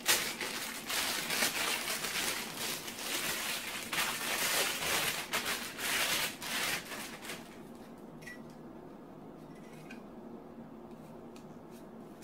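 Plastic wrapping rustling and crinkling as it is pulled off a folded tripod light stand. About seven seconds in it dies down to a few light clicks as the bare stand is handled.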